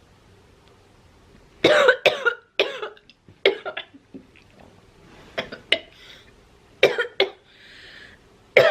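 A woman coughing in repeated fits, brought on by a long drag of cigarette smoke. It is quiet for the first second and a half, then comes a run of harsh coughs, a few more scattered bursts, a breathy exhale, and one last cough near the end.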